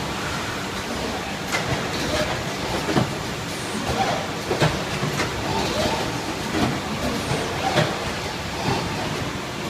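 Automated pouch case-packing and case-sealing line running: a steady machine and conveyor noise with repeated sharp clacks about once a second from the moving mechanisms.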